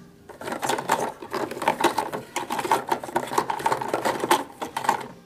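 Hard plastic surprise-egg capsules clattering and knocking against each other and the plastic LEGO storage box as a hand stirs through them: a dense run of rapid clicks and rattles that stops near the end.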